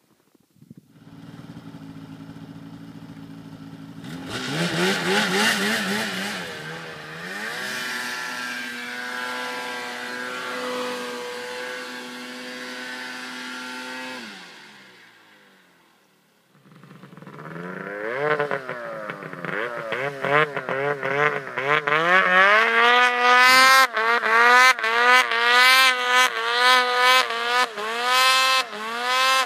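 Polaris 800 RMK snowmobile's two-stroke engine idling, then revved up about four seconds in and held high for several seconds before fading away. It comes back with repeated quick throttle blips, the pitch rising and falling again and again, as the sled works through deep powder on a steep slope.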